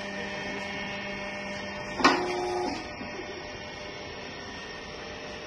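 Steel wool scrubber packing machine running with a steady mechanical hum. About two seconds in there is a sharp clack with a short ringing tone lasting under a second, after which the machine runs on a little more quietly.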